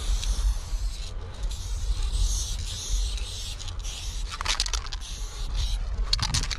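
Aerosol spray-paint can hissing as paint goes onto a brick wall, with two short runs of quick rattling clicks in the second half. A steady low rumble lies underneath.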